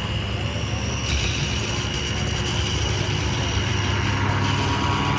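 Paramotor engines droning steadily overhead, with a high steady whine that gets stronger about a second in.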